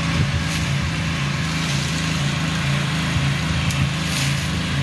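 7 hp petrol engine of a power weeder running steadily as it tills the soil, an even low engine hum.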